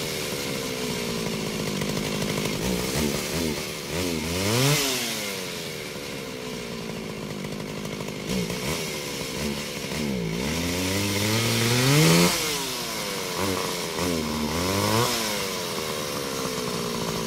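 Chainsaw sound effect: a small two-stroke chainsaw engine revving up and down again and again, its pitch climbing to a high whine and falling back to a lower run between revs, with three big revs, the highest about three quarters of the way through.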